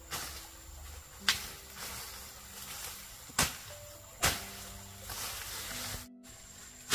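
Soft background music with long held notes, with three sharp knocks or taps on top. The knocks come about a second in and twice more around the middle. The sound drops out completely for a moment near the end.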